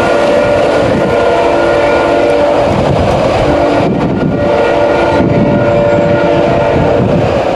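Diesel locomotive air horn sounding a chord over the rumble of a passing train, breaking off a little before the middle and sounding again in the second half.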